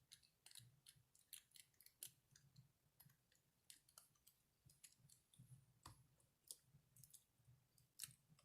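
Faint, irregular small clicks and taps of a smartphone's plastic parts being handled during reassembly.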